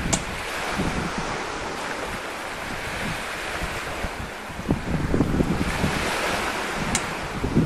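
Wind buffeting the microphone, with a sharp chop of a long-bladed knife cutting through a stingray on a concrete floor right at the start and another about seven seconds in.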